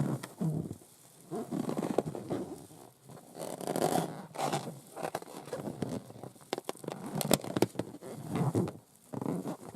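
Long acrylic nails scratching and rubbing over a rubber balloon in repeated strokes, with a few sharp nail clicks a little after the middle.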